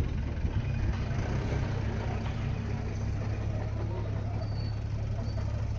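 A heavy machine's engine running steadily with a constant low rumble.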